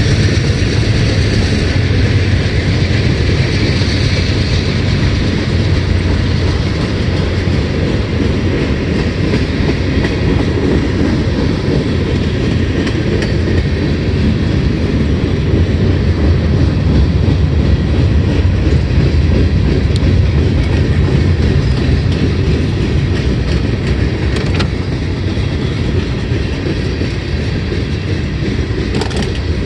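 Freight cars of a CSX mixed freight train (boxcars, gondolas and tank cars) rolling past: a steady rumble of steel wheels on rail, with occasional clicks. It eases off slightly near the end.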